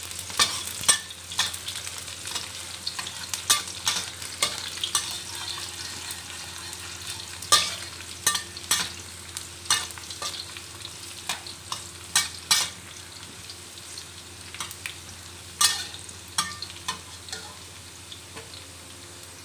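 Garlic and onion sizzling in hot oil in a stainless steel wok as they sauté toward golden brown, while a metal spatula stirs and scrapes the pan. Irregular sharp clinks of metal on the wok come every second or so, thinning out near the end.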